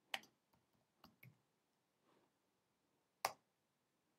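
Near silence broken by a few sharp clicks: one just after the start, a faint pair about a second in, and a louder one a little past three seconds.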